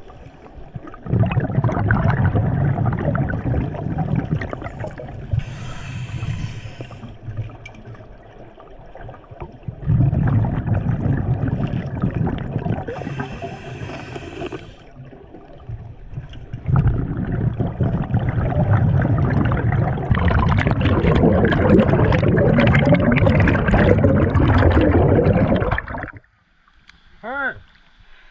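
Scuba diver breathing through a regulator underwater: long bubbling rushes of exhaled air, each lasting several seconds, broken by short hisses of inhaled air. A brief warbling squeak comes near the end.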